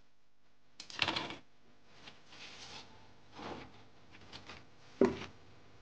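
Scattered clicks and knocks of small objects being handled, with a cluster about a second in and the loudest, a single sharp knock, about five seconds in.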